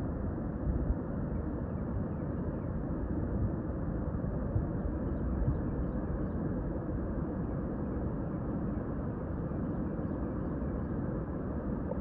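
Steady low rushing of water pouring over a wide, low river dam.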